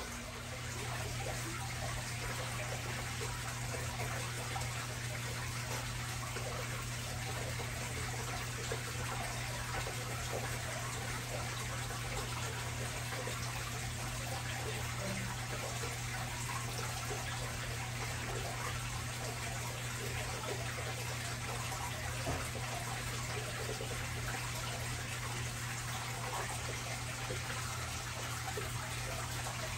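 Aquarium filter running: a steady rush and trickle of water, with a steady low hum underneath.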